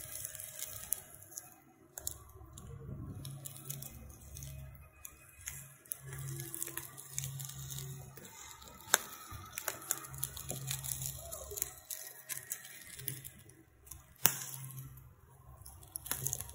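Wood-branch fire crackling under chicken skewers, with a steady sizzle and many scattered sharp pops, the two loudest about nine and fourteen seconds in. A low steady hum lies underneath.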